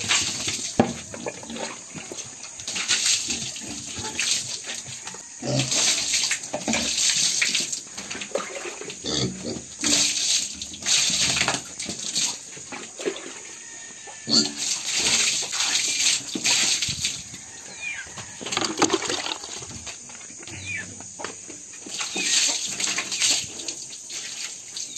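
Water poured and thrown over pigs from a plastic dipper, splashing onto them and the concrete pen floor in repeated sloshes every couple of seconds, with pig noises in between.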